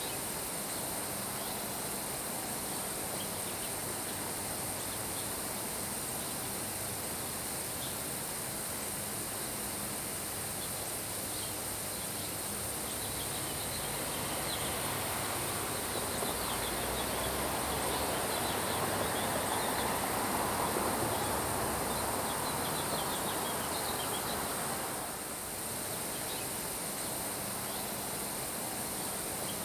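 Steady summer rain and wind over grass, a gust building for several seconds past the middle and then easing, with faint high chirps over the hiss.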